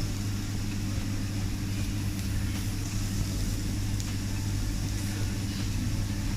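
Steady low machine hum with a fainter hiss above it.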